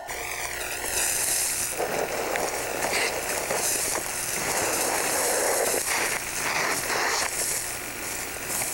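Crunching and rustling of footsteps through frozen, frost-covered grass and brush, in irregular crackling bursts.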